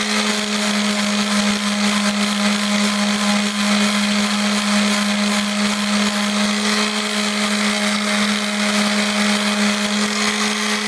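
Electric mouse (detail) sander running steadily while sanding a balsa wood dragster body: an even motor hum at a constant pitch with the hiss of the sanding pad on the wood.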